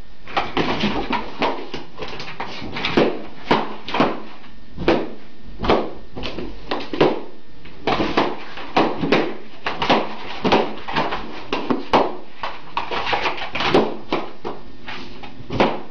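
A dog popping rubber balloons one after another: a long irregular string of sharp pops, about one or two a second and sometimes in quick pairs.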